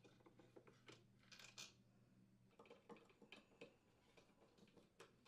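Faint clicks and light scrapes of a Phillips screwdriver unthreading the two screws that hold an oven door handle, with a brief rasp about a second and a half in. Otherwise near silence.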